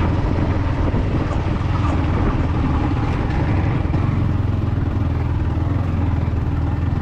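Motorcycle engine running steadily as the bike is ridden up a rough hill road.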